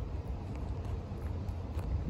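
Kitten eating wet cat food from a bowl, a few faint clicks of chewing over a low, steady outdoor rumble.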